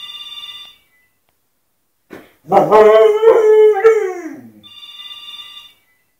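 A telephone rings briefly, then a dog howls loudly for about two seconds, its pitch sliding down as it trails off; the phone rings again near the end. The dog is howling in reaction to the ringing phone.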